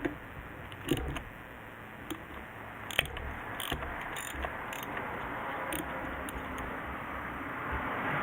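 A dozen or so irregular, sharp mechanical clicks and clinks over a steady background hiss, the loudest about one and three seconds in.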